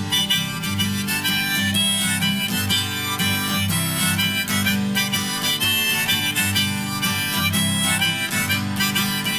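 Instrumental break in a folk-country song: harmonica playing a melody over strummed guitar.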